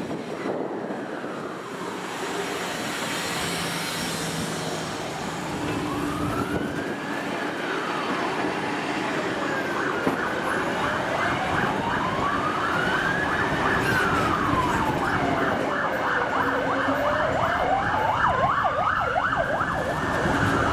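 Emergency vehicle siren wailing, its pitch slowly rising and falling about every six seconds, starting a few seconds in and growing slightly louder, with a fast yelping warble over it at times.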